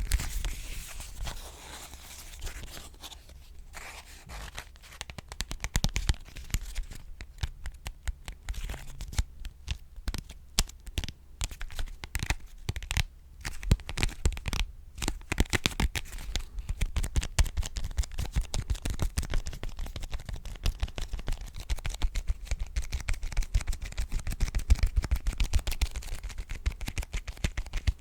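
Fingertips and fingernails tapping and scratching on an object in quick, uneven runs of small sharp clicks, softer for the first few seconds and stronger from about five seconds in.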